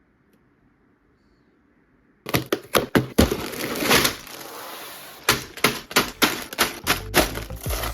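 Near silence, then about two seconds in a quick run of sharp plastic clicks, cracks and crinkles: LEGO packaging and pieces being handled and opened.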